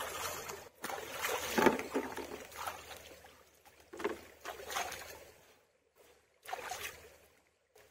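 Shallow stream water sloshing and splashing in irregular bursts, with short spells of silence between.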